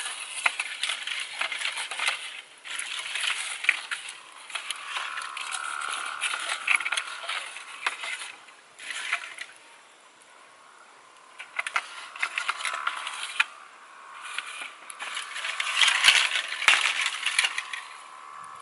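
Wood campfire crackling and popping in uneven spells of crisp clicks, busiest near the end, with brief lulls.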